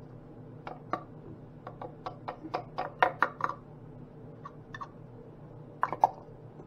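Hard plastic clicks and knocks as a small food chopper's clear bowl and blade assembly are handled and taken apart, in irregular clusters, over a faint steady low hum.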